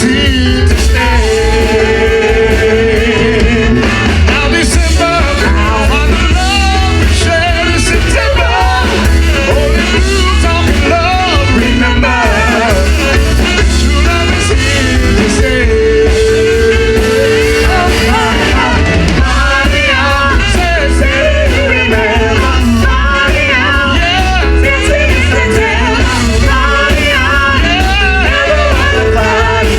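Live band playing with a singer, the drums and bass keeping a steady beat under the vocal line.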